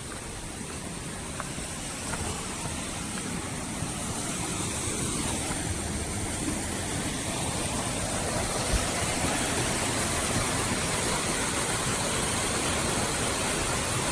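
Rushing water of a small jungle waterfall, a steady hiss that grows gradually louder over the first half and then holds.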